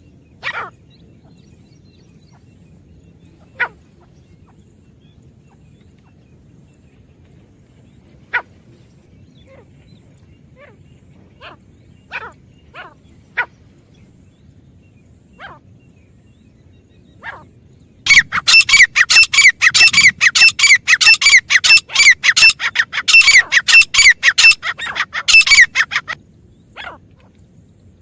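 Grey francolin calling. Sharp single notes come a few seconds apart, then about two-thirds of the way in a loud, fast run of shrill repeated notes, several a second, lasts about eight seconds before it breaks back into single notes.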